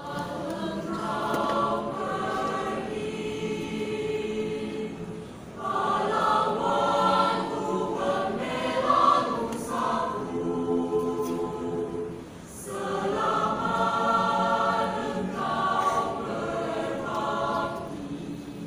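A choir singing in several parts at once, in phrases with short breaks about five and a half and twelve and a half seconds in.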